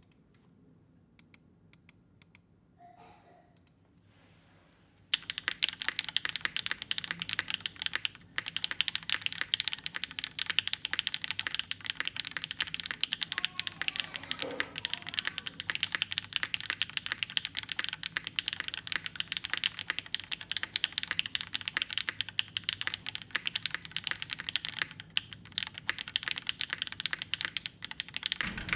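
Custom Rose TKL mechanical keyboard with a full aluminium plate, BCP switches and GMK keycaps being typed on. A few isolated keystrokes come first, then fast continuous typing starts about five seconds in and runs on with one brief pause.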